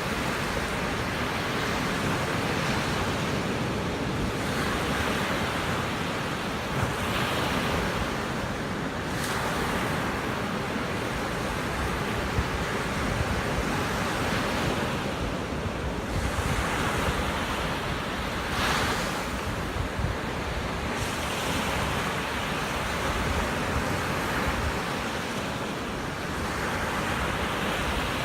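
Surf breaking and washing up a sandy beach, the rush swelling and fading every few seconds, with a low rumble of wind on the microphone.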